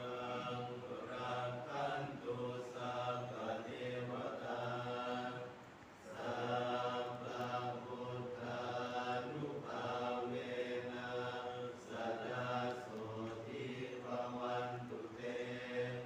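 A group of voices chanting Buddhist verses in unison on a near-steady low pitch, in long phrases with a brief breath pause about six seconds in.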